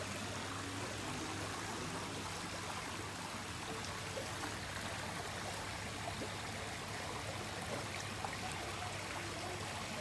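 Water from a koi pond's waterfall pouring steadily into the pond.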